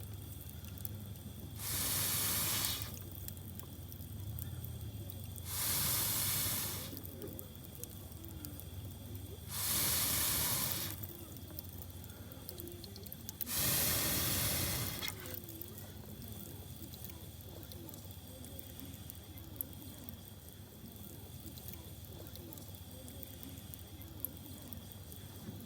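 Four long hissing puffs of air, about four seconds apart, blown onto a small wood fire to get it going, with faint crackling of the fire between them.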